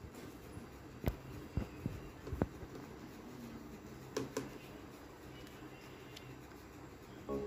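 Faint handling sounds of hands pressing lace trim onto the edge of a wooden tray: a few light taps and knocks between about one and two and a half seconds in, and a pair near four seconds, over a low steady hum.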